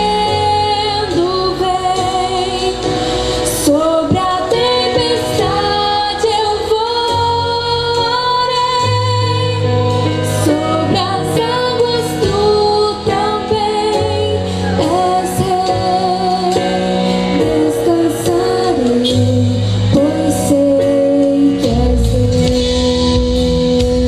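A woman singing a gospel song solo into a microphone, with vibrato on the held notes, over a steady instrumental accompaniment with bass.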